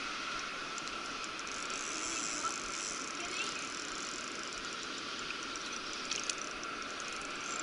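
Fishing reel whirring steadily with faint clicks as a hooked trout is played in toward the net.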